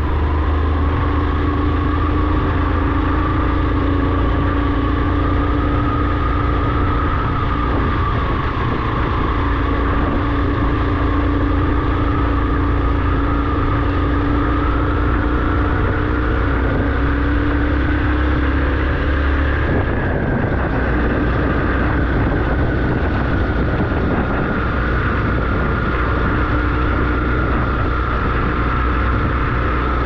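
Vehicle engine running steadily while driving, its pitch slowly rising and falling. The low rumble changes about twenty seconds in.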